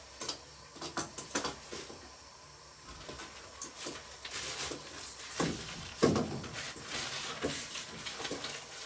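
Handling noise: scattered clicks and plastic-bag rustling as items are moved about on a high shelf, with a couple of louder dull knocks a little past halfway.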